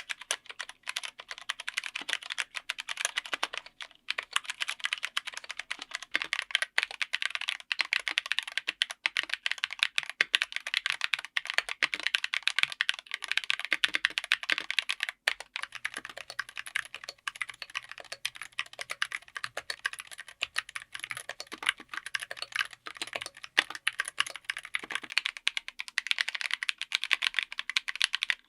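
Continuous typing on a mechanical keyboard fitted with tactile switches: a dense, rapid stream of key clicks and keycap strikes.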